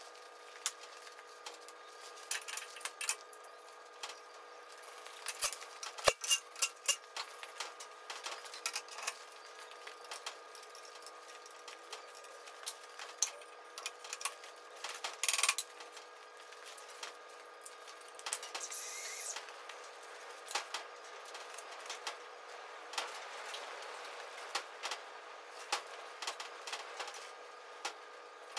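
Steel parts and hand tools clinking and knocking as a line boring bar is refitted and adjusted in its bearing mounts on an excavator bracket, over a steady machine hum. The knocks come irregularly, thickest about six seconds in and again around fifteen seconds in.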